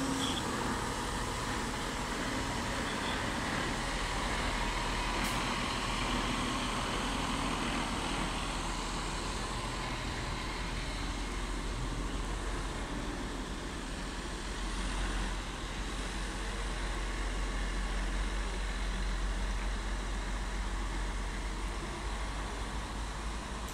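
Heavy-haul truck and multi-axle low-loader trailer passing close by: a steady mix of diesel engine running and tyre noise on the road.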